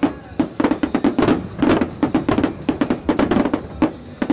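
Aerial fireworks shells bursting in a rapid series of sharp bangs and crackles, over music playing.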